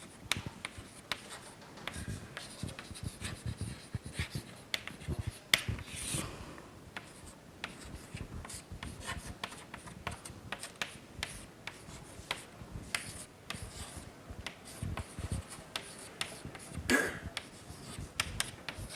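Handwriting: scratchy pen strokes and frequent light taps as an equation is written out.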